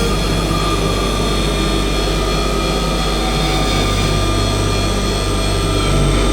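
Dark ambient noise drone from a Rucci Maximal Drone synth processed through a Make Noise Strega, delays and reverb: a dense, steady wall of sustained tones over a deep low hum, with hiss on top. A new low note comes in near the end.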